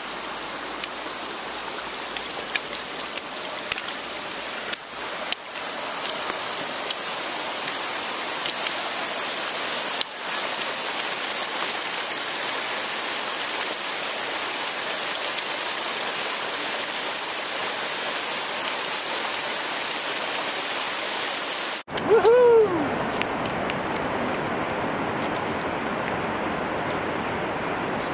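A small stream running over rocks: a loud, steady rushing hiss. It cuts off abruptly about three-quarters of the way through. A brief loud sound falling in pitch follows, then a quieter, duller outdoor hiss.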